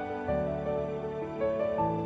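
Background music: soft, slow instrumental with sustained notes changing every few tenths of a second.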